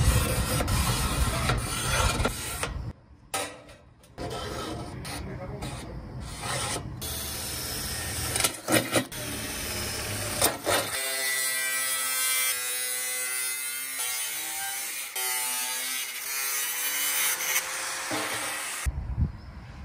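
A marker pen scraping over a stainless steel pan with a few clicks as the outline is traced, then a cordless drill running and boring holes through the thin stainless steel, a steady whine that shifts pitch several times.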